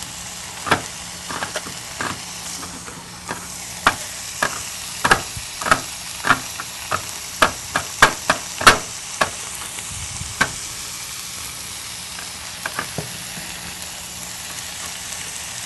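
Knife chopping green peppers on a cutting board: irregular sharp knocks, thickest about halfway through, over the steady sizzle of onions frying in a skillet.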